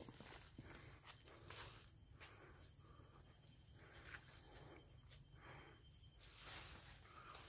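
Faint, soft rustling of poplar leaves brushing past while walking through a young poplar plantation, with light footsteps on soil and a thin insect chirr in the background; overall near silence.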